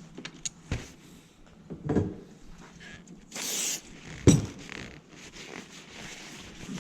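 Hand tools being handled and put away: a few separate knocks and clatters, the loudest about four seconds in, and a short scraping slide just before it.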